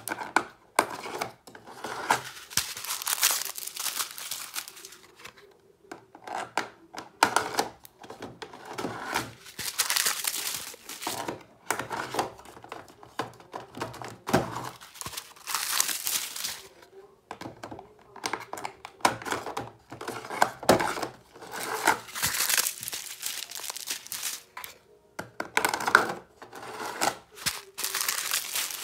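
Small clear plastic bags of diamond painting drills crinkling as they are handled and shuffled about, on and off in short irregular spells.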